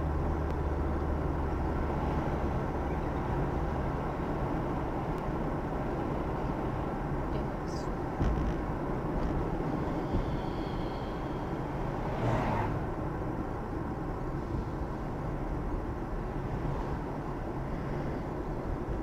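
Car cabin noise while driving at about 58 km/h: a steady low rumble of tyres and engine, with a brief louder swell about twelve seconds in, easing a little as the car slows.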